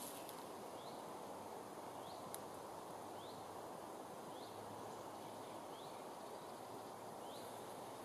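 Woodland ambience: a bird repeats a short, high, rising chirp about once a second over a steady background hiss, with a single faint click a little over two seconds in.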